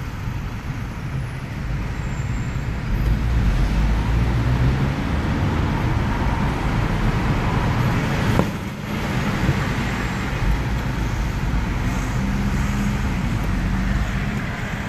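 Road traffic heard from inside a moving car's cabin: a steady low engine and tyre rumble that swells a few seconds in. A single sharp knock comes about eight seconds in.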